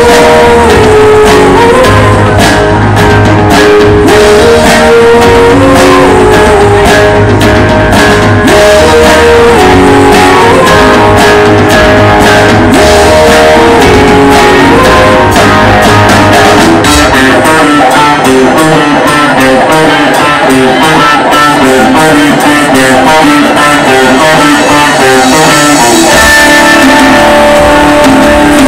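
Live rock band playing loud: electric guitar lines over drums, with the deep bass thinning out about halfway through.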